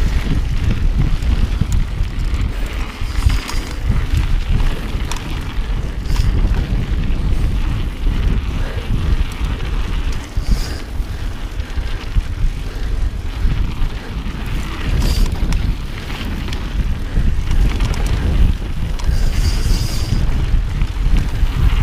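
Wind buffeting an action camera's microphone on a mountain bike riding fast down a dirt singletrack, a constant low rumble. A few brief high rattles from the bike come through over bumps.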